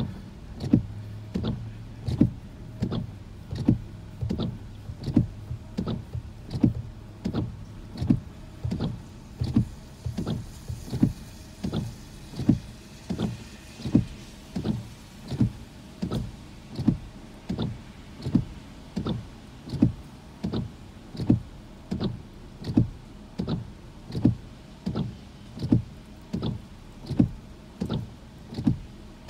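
A steady train of short mechanical clunks inside a car, about three every two seconds, evenly spaced. A low hum runs under them for the first third.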